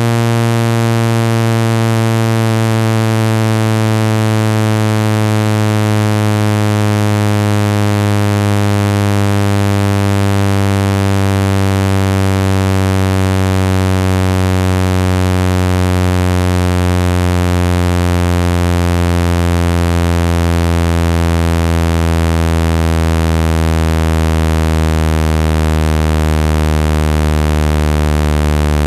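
Synthesized low buzzing tone, rich in overtones, sliding slowly down in pitch: a speaker-cleaning tone meant to vibrate water out of a phone speaker.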